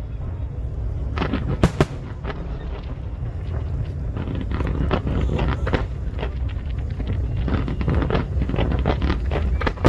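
Aerial fireworks bursting: two or three sharp bangs about a second and a half in, then rapid crackling pops over the second half, over a steady low rumble.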